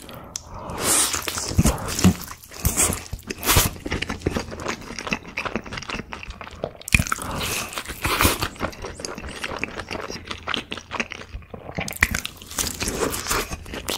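A person biting into and chewing crisp sauce-coated fried chicken: several big bites, each followed by a run of crackling crunches as it is chewed.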